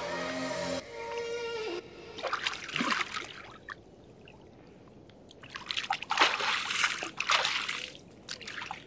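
Lake water splashing and sloshing around an angler's hands as a large mirror carp is released and swims off, in two spells of splashing with a short lull between. Music fades out near the start.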